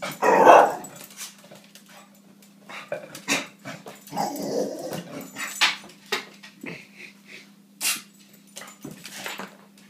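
Dog barking at balloons in short separate bursts, the loudest about half a second in and more around the middle.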